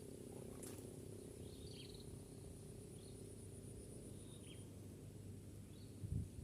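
Faint rural outdoor ambience: a steady high-pitched insect drone with a few short bird chirps spaced a second or more apart.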